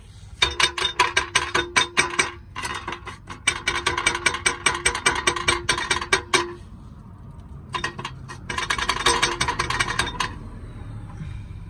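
Rapid metallic clinking rattle in four bursts of a few seconds each, with a steady ringing tone under the clicks.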